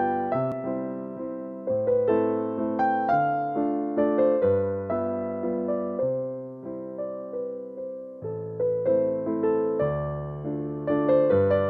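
Background music: a gentle electric piano playing struck chords over low bass notes, each note fading after it is struck.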